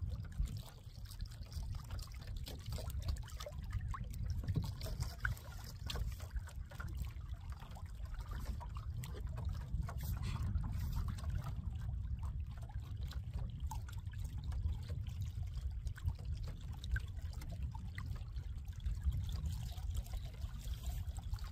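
Water trickling and lapping along the hull of a kayak under way, with small splashes over a steady low rumble.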